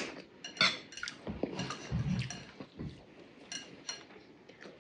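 Metal spoons clinking and scraping against ceramic bowls as rice is scooped up, in a few faint, scattered clicks.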